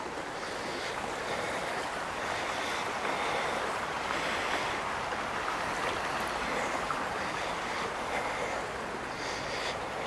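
Steady, even rushing of wind.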